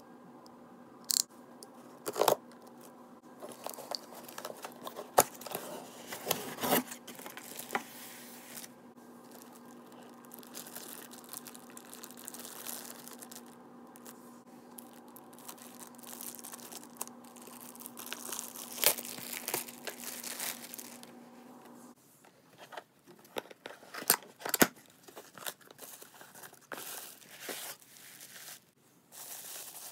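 Parcel being unboxed by hand: a utility knife cutting into a taped cardboard box, then plastic wrapping and bubble wrap being torn and crinkled, with many sharp crackles and taps.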